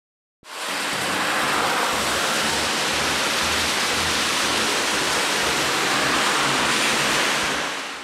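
A steady rushing hiss cuts in suddenly about half a second in and fades away near the end.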